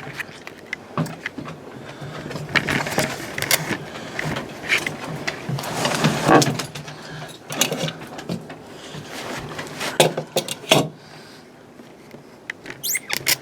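Gear being handled and unpacked: irregular rustling with scattered clicks and light knocks.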